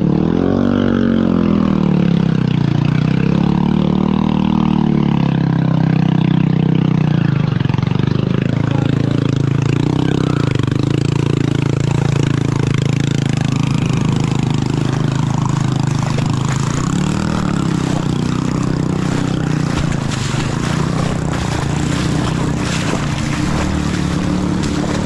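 Motorcycle engine running, its pitch rising and falling twice in the first few seconds as the throttle is opened and closed, then holding steady, over a steady rushing noise.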